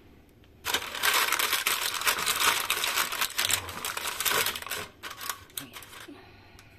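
Disposable paper air fryer liner crinkling as it is pressed and smoothed into the air fryer basket by hand. The crinkling starts under a second in, runs dense for about four seconds, then thins to a few fainter crackles.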